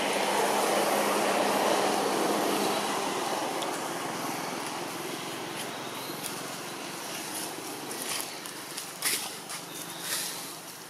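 Outdoor rushing background noise that swells at the start and fades away over the first few seconds. Near the end come a few sharp rustles and snaps as macaques move about in the tree branches.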